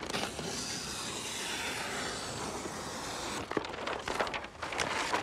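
A large paper target sheet being cut free of its roll: a continuous rasping tear lasting about three and a half seconds, then crackling paper rustles as the loose sheet is lifted and handled.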